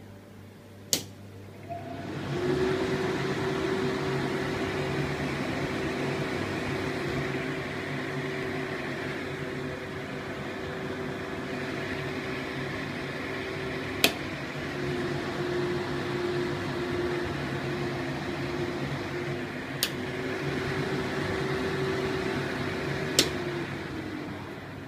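Pacific PR-90 kitchen exhaust hood's mixed-flow fans switched on with a click, spinning up to a steady whirring hum. After a further click about halfway the hum drops slightly in pitch and level, then rises again after another click. A last click near the end switches the fans off and they wind down.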